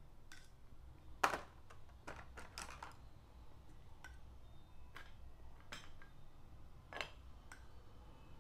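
Scattered light clicks and small knocks of painting tools and paint jars being handled on a worktable: about ten, the loudest about a second in, over a faint low hum.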